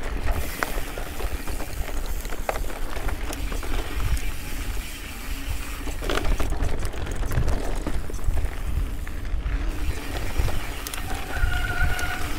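Low wind rumble on the microphone with scattered sharp clicks and rattles of a mountain bike rolling over rock. Near the end a brief held tone sounds.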